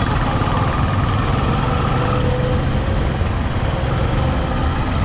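Motorcycle engine running at a crawl in slow traffic, with the engines of CNG auto-rickshaws close by: a steady, even engine hum.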